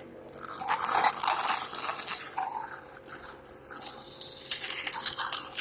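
Mucus crackling and rattling in a tracheostomy cannula as it is cleared, in two rough rushes of air of a couple of seconds each, over a faint steady machine hum.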